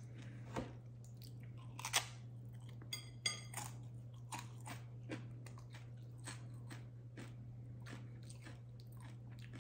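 A One Chip Challenge tortilla chip being bitten and chewed: a run of irregular crisp crunches, the loudest about two seconds in and around three to three and a half seconds, then softer steady chewing.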